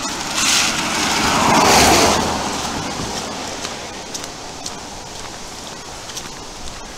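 A car driving past on a wet lane, its tyres hissing on the wet road. The sound swells to its loudest about two seconds in, falls in pitch as it goes by, then fades away.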